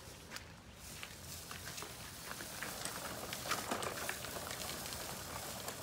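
Push broadcast spreader rolling over soil and flinging grass seed: a dense scatter of small ticks and patters over a hiss that builds after about a second.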